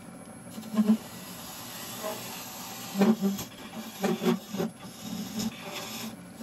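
Steel scraper cutting the inside of a solid brass blank spinning on a wood lathe: a steady hiss from the cut, broken by short, louder buzzing bursts as the tool bites, about a second in, around three seconds, and several times between four and five seconds.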